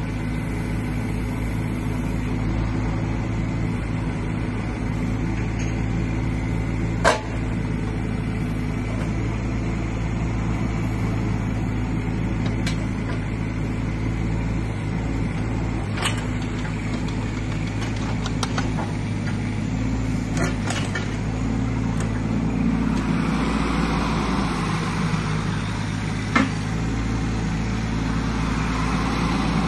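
Doosan DX10Z micro excavator's diesel engine running steadily while the boom and bucket are worked hydraulically, with a few sharp knocks as the arm moves. Near the end it grows rougher and noisier for several seconds as the machine slews round.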